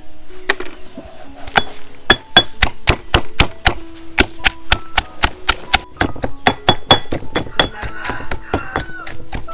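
Kitchen knife chopping on a cutting board in steady, repeated strokes, about three a second, over background music.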